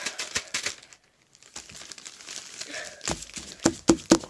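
Clear zip-top plastic bag crinkling as it is handled, with a wet baking-soda-and-salt fake-snow mixture inside. The crinkling stops briefly about a second in, then comes back, with sharper, louder crackles near the end.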